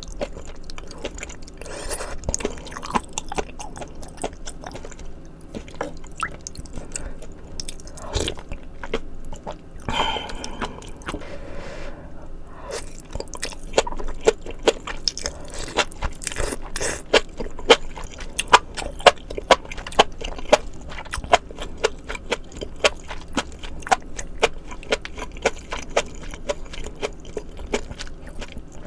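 Close-miked chewing of spicy maratang, a mala soup of noodles and vegetables: wet chewing at first, then a steady run of loud, crisp crunches from about halfway through.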